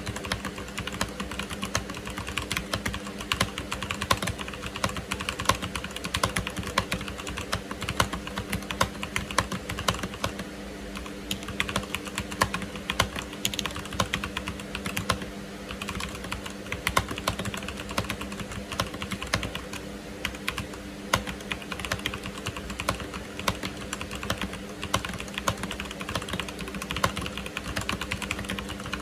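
Continuous typing on a Machenike K7 mechanical keyboard with Zorro black linear switches, a Chinese clone of Cherry MX Blacks: a dense, uneven stream of key clacks with no pauses.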